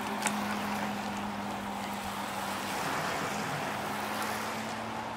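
Steady hiss of a rain-wet roadside as road bicycles ride along the wet pavement, with a low steady hum underneath and a small click near the start.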